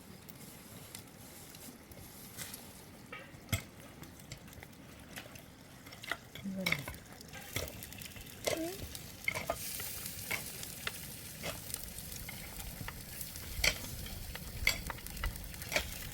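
Food sizzling in a frying pan while being stirred, with scattered clicks of a utensil against the pan. The sizzle grows louder partway through.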